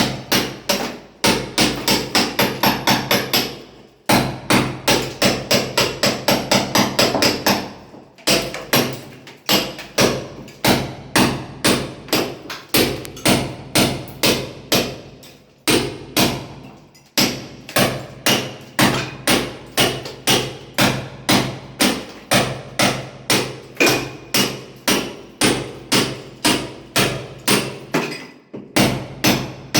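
Hammer blows on masonry as a mason breaks a wall: sharp, ringing strikes at about two to four a second, in runs of several seconds with short pauses between them.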